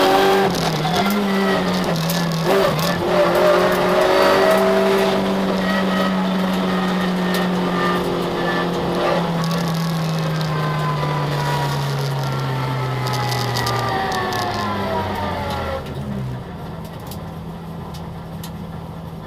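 Citroën Saxo VTS rally car's 1.6-litre 16-valve four-cylinder engine, heard from inside the cabin. It runs under load with a couple of quick gear changes, then its pitch falls steadily as the car slows. About sixteen seconds in it drops to a quieter, steady idle.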